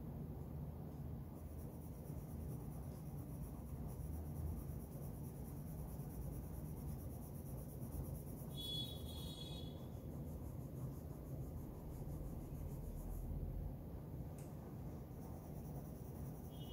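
Graphite pencil scratching and shading on drawing paper, over a steady low hum. A brief high chirp comes about halfway through.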